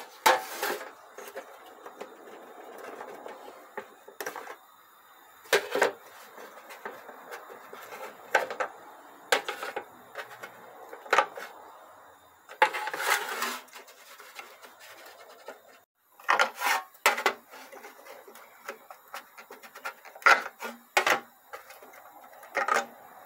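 Irregular clicks and knocks, some drawn out into short scrapes, as transmission solenoids are wriggled out of a 6T40 solenoid body and set down on a metal tray.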